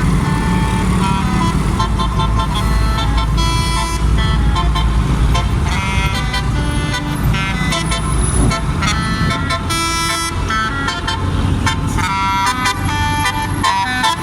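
Bus telolet horns (Basuri multi-tone musical air horns) playing quick runs of short, changing notes, over a steady low rumble.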